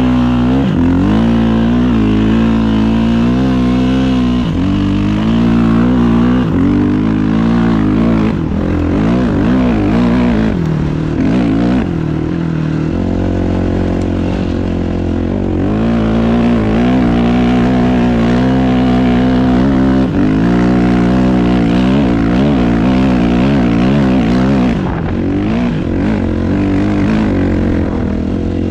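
Dirt bike engine running under load while riding, its revs rising and falling constantly, with a steadier stretch about halfway through.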